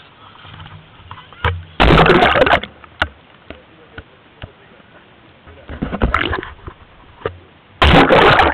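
Water splashing and sloshing, with two loud splashes, about two seconds in and near the end, and a smaller one in between.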